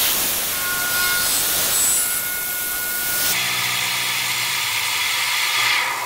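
CNC milling machine cutting a pocket into an aluminium block with an end mill: a steady, hissing grinding noise that changes in tone about three seconds in, when a low hum joins it.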